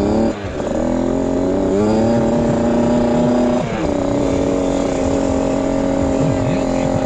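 65cc two-stroke motocross bike engine running hard at high revs under the rider. Its pitch drops sharply about a third of a second in, climbs again, and drops once more near the middle before holding steady, like throttle chops or gear changes.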